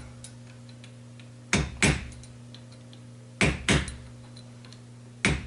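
Sharp metal-on-metal taps, five in all, falling in pairs about a third of a second apart, the pairs about two seconds apart: the 2-4 synchro hub of a Ford 2000E gearbox being tapped down onto the mainshaft by hand instead of pressed on.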